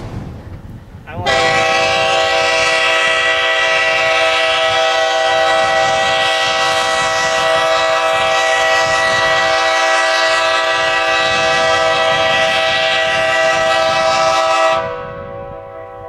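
Canadian-tuned Nathan K5LA five-chime locomotive air horn on an ALCo C425 sounding one long, steady chord. It starts about a second in and cuts off near the end, with a short echo dying away. This is a sustained blast for an FRA horn loudness test.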